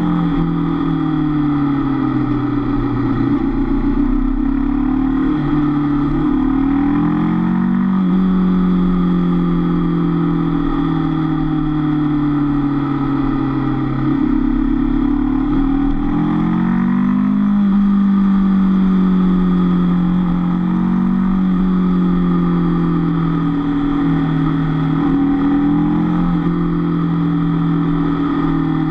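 Honda CB500F's parallel-twin engine running on the road. Its pitch glides down and steps back up several times, as the revs fall and the rider changes gear through the bends.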